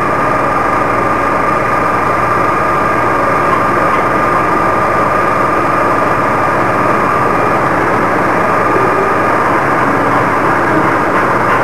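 Copy lathe turning a taper shank drill blank: steady machine running noise with a constant high whine.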